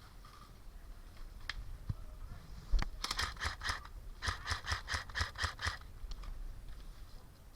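Airsoft gun firing two quick strings of sharp shots, a short one about three seconds in and a longer one just after, roughly six or seven shots a second. A single sharp knock comes just before the first string.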